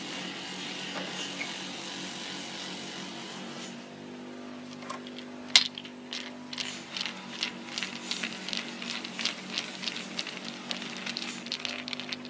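Screwdriver working screws out of a perforated metal shield cover on a copier: one sharp click about five and a half seconds in, then a quick run of ratchet-like clicks, about four a second, over a steady low hum.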